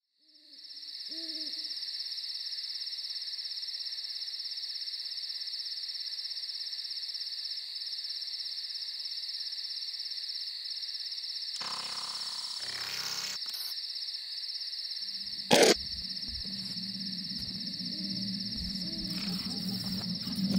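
Night-time ambience: a steady high cricket trill fades in and runs on, with an owl hooting once about a second in. Past the middle comes a brief noisy sound, then a single sharp crack, the loudest moment, as a low hum begins to build.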